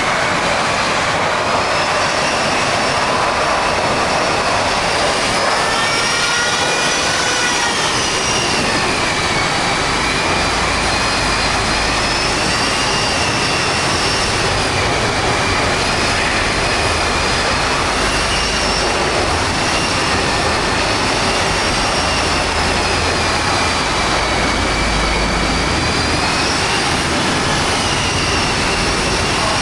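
Handheld electric rotary polisher running with its foam pad on a car's paint. Its motor gives a steady whine over a rushing noise, and the pitch slowly wavers up and down as the load on the pad changes.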